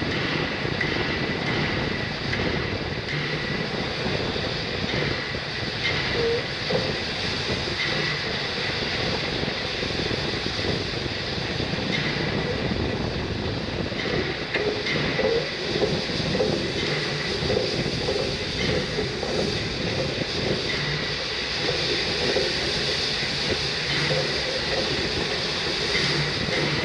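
Narrow-gauge steam train on 2 ft 6 in track running at steady speed: a continuous rumble of wheels on rail with light clicking over the rail joints, heard from the front of the locomotive.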